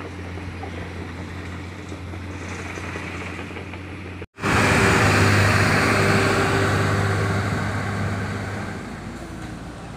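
A heavy vehicle's diesel engine running steadily with a low hum. About four seconds in the sound cuts out for a moment, then comes back louder and noisier and slowly fades.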